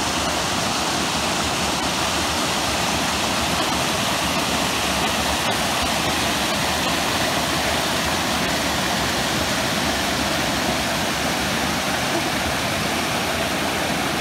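Steady rush of white water pouring over rock ledges in a river cascade, loud and unbroken.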